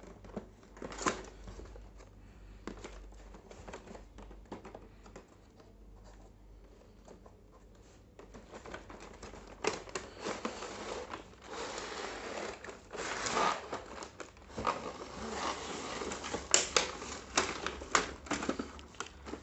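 Packaging of a boxed toy train set being opened and handled: scattered clicks and taps at first. From about halfway there is dense crinkling and rustling of cardboard and plastic.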